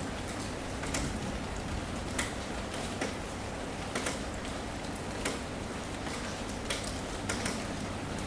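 Steady rainfall hiss with individual heavier drops striking a surface about once a second.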